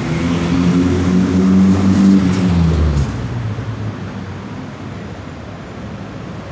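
Car engine passing close by, its note loudest about two seconds in and dropping away after about three seconds, leaving the lighter, steady noise of street traffic.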